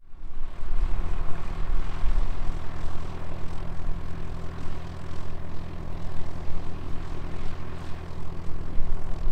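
Piston engines and propellers of a twin-engine Britten-Norman BN-2B Islander running steadily, an even low drone.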